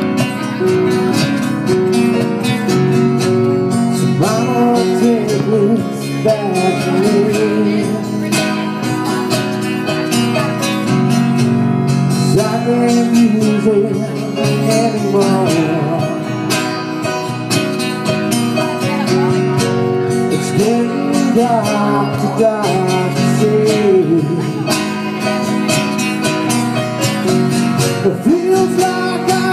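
Live acoustic music: a steadily strummed acoustic-electric guitar with a singer's voice in phrases over it, amplified through a PA.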